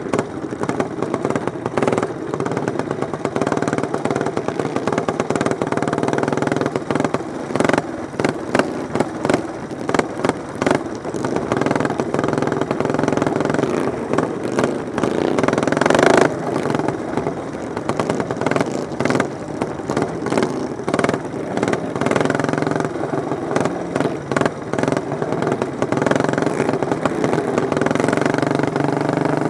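Racing lawn mower engines running during a race, a steady engine drone with many short crackles throughout, loudest about sixteen seconds in.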